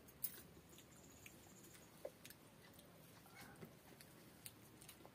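Faint eating sounds: soft chewing and a few small clicks as rice is eaten by hand off a banana leaf.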